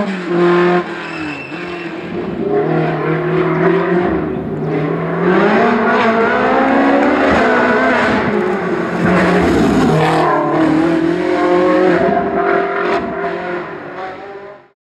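Hill-climb race car engine revving hard, its pitch rising and falling through gear changes and lifts. It fades away and cuts off near the end.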